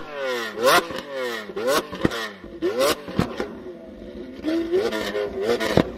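Lamborghini Aventador LP700-4's 6.5-litre V12 free-revved while standing still: a run of quick, sharp blips about once a second, each falling straight back with crackles from the exhaust, with a short lull at about two-thirds of the way through.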